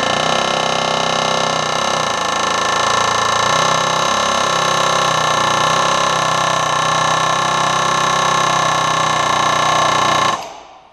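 A power tool running steadily with a high, ringing whine, cutting off abruptly near the end.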